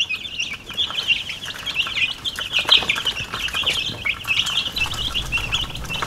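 Brood of Cornish Cross and White Leghorn chicks peeping nonstop, a dense chorus of short high chirps, as they crowd a freshly filled feeder at feeding time, with a few light clicks among them.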